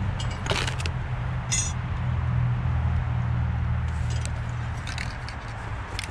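A few light metallic clinks and taps from small metal parts and hand tools being handled on a table, over a steady low hum.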